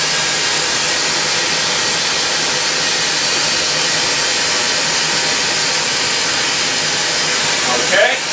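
Glassworking hand torch flame hissing steadily as it heats glass, with a short squeaky glide near the end.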